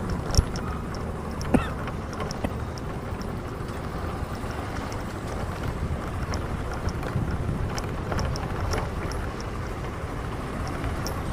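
Steady low outdoor rumble with wind buffeting the microphone, and two sharp knocks near the start.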